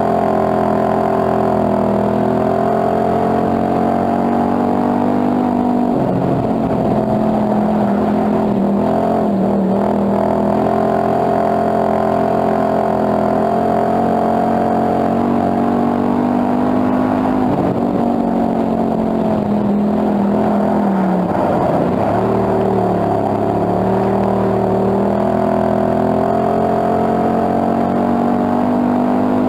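Hobby stock dirt-track race car's engine heard from inside the cockpit at racing speed, running hard and steady. Its pitch drops twice, about six seconds in and again around twenty seconds in, as the driver eases off for the turns, then climbs back up.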